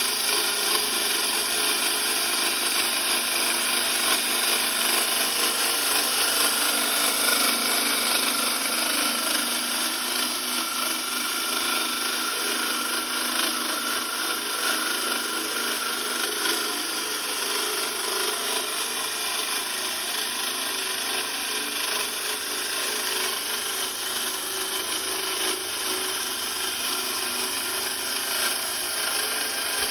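Core drill running steadily as it bores, an even, unbroken noise, a little louder in the first several seconds.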